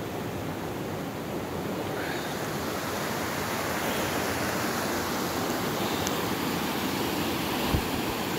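River rapids rushing: a steady wash of fast-flowing water over rocks. A single brief low thump near the end.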